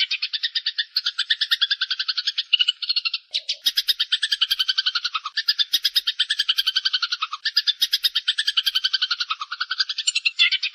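Small songbird's rapid rattling trill, played as a bird-training recording: a dense run of quick pulses in phrases of a second or two, each dipping slightly in pitch at its end, with a brief break about three and a half seconds in.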